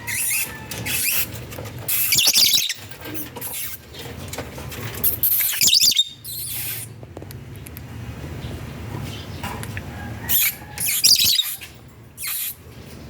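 Lovebirds giving shrill, high-pitched chirps and squeaks in short bursts, several times, with quieter gaps between.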